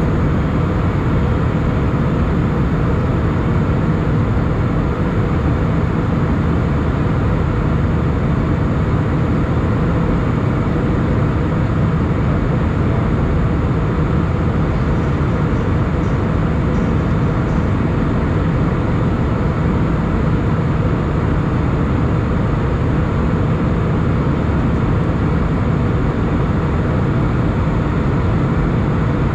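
Steady cabin noise of an Airbus A320 in flight, heard from a seat over the wing: the jet engine drone and rushing airflow, deep and unchanging.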